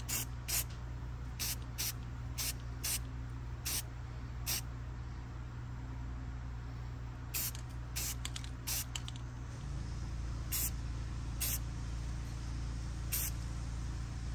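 Aerosol spray can of rust-protective paint hissing in a series of short bursts as sanded, rust-spotted metal is coated. A steady low hum runs underneath.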